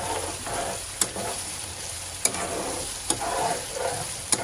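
A slotted metal spatula stirring and scraping minced mutton keema round a non-stick kadai while it sizzles in oil during the bhuna (dry-frying) stage, with four sharp taps of the spatula against the pan.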